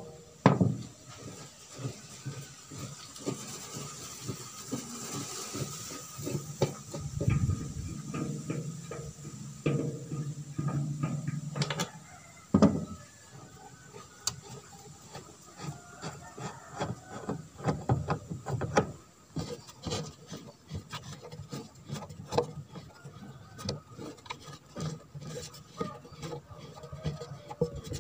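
Hands working on the steel housing of a Yanmar rice husker as it is taken apart to change its rubber hulling rolls: scattered clicks, knocks and rubbing of metal parts against the machine and the wooden bench, with a louder knock about twelve seconds in.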